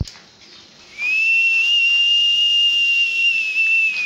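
A high whistle tone comes in about a second in, rising briefly, then held steady on one pitch for about three seconds before cutting off abruptly. A sharp click sounds at the very start.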